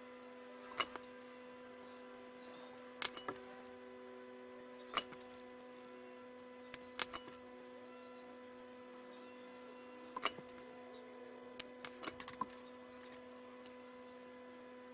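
Faint steady electrical hum under scattered, irregular sharp clicks from hand-soldering fine tinned wires onto a tiny surface-mount chip: small taps and clicks of the iron and wire at the work.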